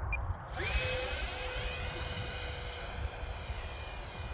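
Electric ducted fan of a Durafly Vampire RC jet spooling up about half a second in, its whine rising quickly in pitch and then holding as a steady high whine. Wind rumbles on the microphone underneath.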